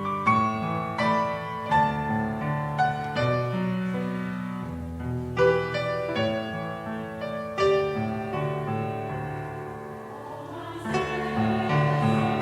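Piano playing a slow hymn accompaniment, struck chords and notes about once a second that ring and fade, the playing growing fuller near the end.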